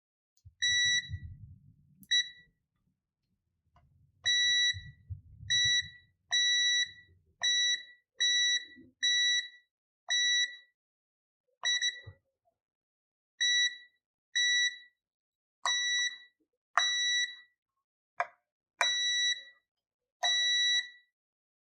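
A multimeter's continuity beeper sounds about fifteen times as short, steady, high beeps at irregular gaps, each with a small click as the probes touch. Each beep marks a good electrical connection between points on the copper-tape shielding in a guitar's electronics cavity and ground.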